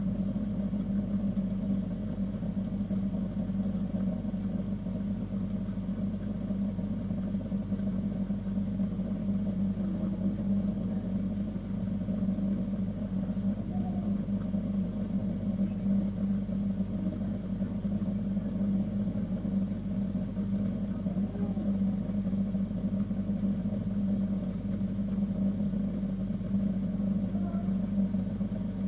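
A steady low machine hum with an unchanging pitch.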